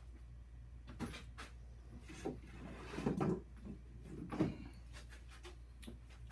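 Boards being picked up and moved about: a few scattered knocks and clatters, the loudest just past the middle, over a steady low hum.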